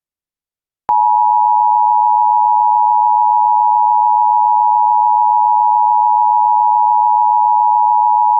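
Emergency Alert System attention signal: a loud, steady two-tone beep just under 1 kHz (the 853 and 960 Hz pair) starting about a second in, the signal that an emergency alert message follows.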